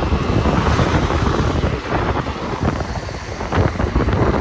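Wind buffeting the microphone of a rider on a moving two-wheeler, with the engine and road noise running underneath.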